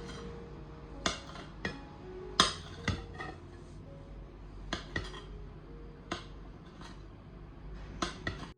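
Kitchen dishes and utensils clinking and knocking: about a dozen sharp, irregularly spaced strikes.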